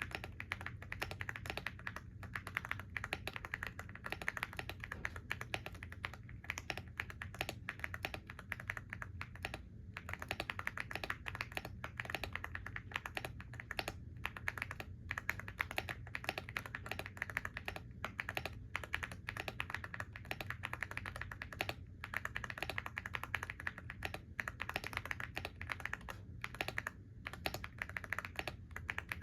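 Continuous fast typing on a computer keyboard, a dense irregular patter of key clicks with a few brief pauses, over a faint steady low hum.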